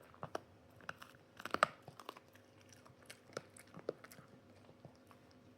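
Cavalier King Charles spaniel chewing a hard dog chew: a run of irregular crunching bites, loudest in a quick cluster about a second and a half in.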